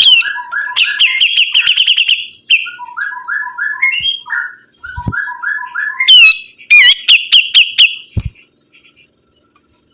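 A sibuntung songbird singing loudly in full song: runs of short rising notes climbing in steps, alternating with fast trills of repeated notes. The song stops a little past eight seconds in, with a low thump about five seconds in and another as it ends.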